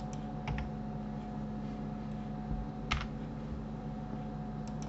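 A few scattered clicks of a computer keyboard and mouse, the loudest about three seconds in and two quick ones near the end, over a steady low hum.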